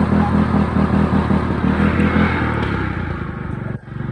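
Old riding lawnmower's small engine running under load as it tows a broken-down ATV, with a rapid pulsing beat that settles into a lower, steadier note about two and a half seconds in. The sound cuts out for an instant near the end.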